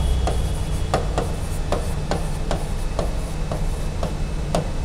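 Pen tip tapping and scraping on an interactive display screen during handwriting: a string of irregular light clicks, about two or three a second, over a steady low hum.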